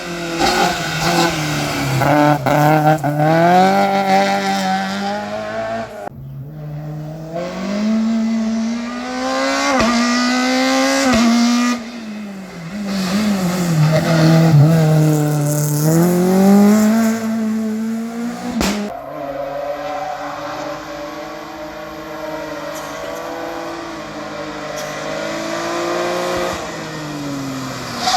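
Race car engines revving hard through slalom chicanes, the pitch climbing through the gears and falling off again under braking, over and over, with abrupt changes a few times as one run gives way to another.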